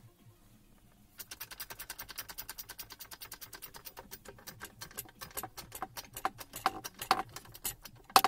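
Ratchet wrench on a long socket extension, clicking in a fast even run of about ten clicks a second as a nut on a gear shaft is run down. From about four seconds in the clicks come slower, uneven and louder.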